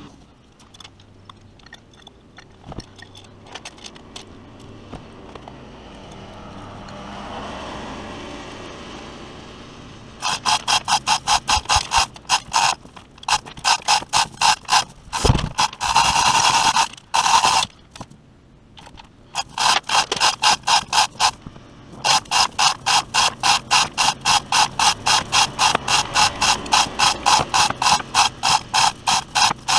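Hand ratchet wrench worked in quick back-and-forth strokes, about four a second, loosening engine bolts, in runs broken by pauses. It is quiet with faint clinks for the first ten seconds, and there is a single thump about fifteen seconds in.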